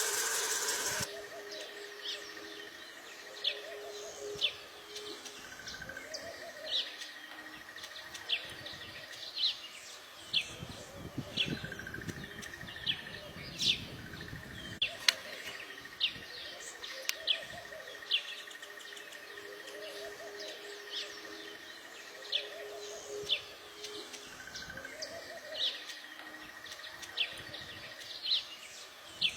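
Weaver birds chirping: short, sharp chirps repeated about once a second or so. A brief burst of noise comes in the first second.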